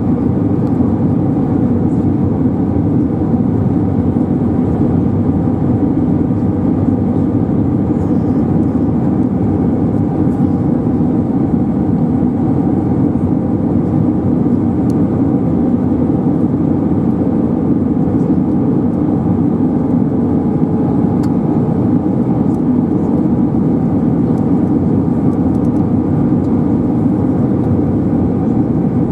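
Airbus A320 cabin noise on final approach with flaps extended: a steady low rumble of the engines and rushing air, even in level with no changes.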